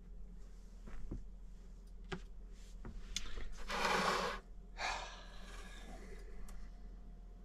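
A few light clicks and knocks, then two short breathy rushes, like a person gasping and then sighing out, about four and five seconds in.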